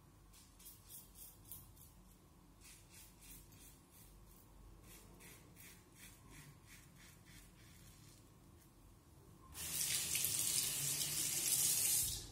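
An Edwin Jagger safety razor with a Derby Extra blade scraping through lathered stubble in a run of short, quick strokes. Near the end a tap runs into a sink for about two and a half seconds, louder than the strokes.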